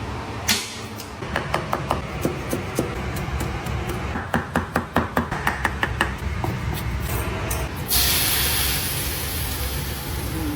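Cleaver chopping on a board in a run of quick sharp knocks, then a sudden loud sizzle about eight seconds in, as food goes into a hot wok.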